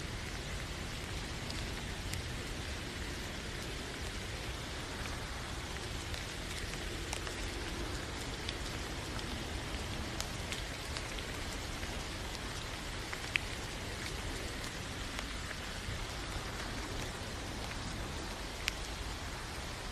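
Steady rainfall: an even hiss of rain with scattered single drops ticking through it. Two sharper ticks stand out, about two-thirds of the way in and near the end.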